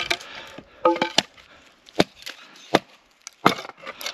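Axe chopping and splitting dry wooden boards into firewood: a series of sharp chops, about one a second, with a split piece clattering and ringing briefly about a second in.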